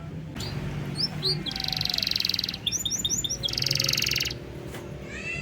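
Domestic canary singing: runs of quick upswept chirps alternating with two fast, buzzing trills.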